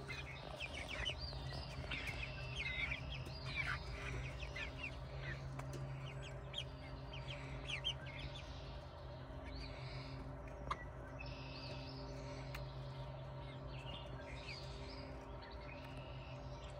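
Backyard hens clucking and chirping softly while they peck at cranberries, busiest in the first few seconds and then scattered, over a steady low hum.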